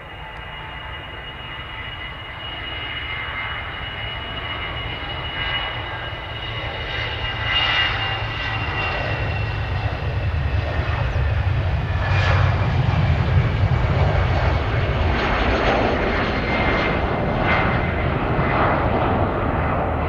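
Airbus A320's twin jet engines at takeoff power through the takeoff roll and lift-off, growing steadily louder, with a deep rumble under a high fan whine that slowly falls in pitch. A rough crackle joins in during the second half.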